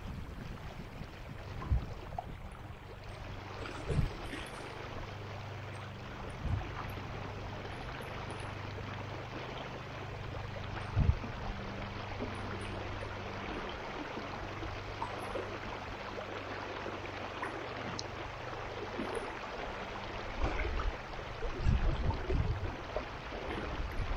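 Stream water rushing and gurgling steadily. A steady low hum sits under it for much of the time, with a few sharp knocks, the loudest about 11 seconds in, and low rumbles near the end.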